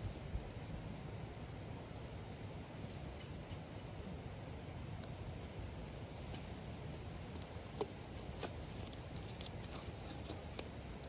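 Wood campfire burning with a low steady rush, punctuated by a few sharp crackles and pops from the burning wood.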